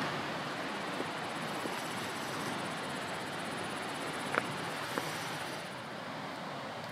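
Steady rushing outdoor background noise with no engine running, and two short sharp clicks about four and a half and five seconds in.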